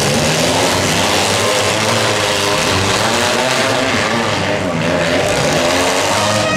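Several demolition derby compact cars' engines running and revving together, loud and steady, their pitch wavering up and down as the drivers work the throttle.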